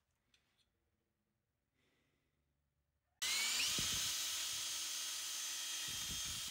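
A few faint knocks of wood blocks being placed, then about halfway through an electric drill with a paddle mixer starts suddenly, stirring a bucket of liquid. Its whine rises quickly to a steady high pitch and keeps running.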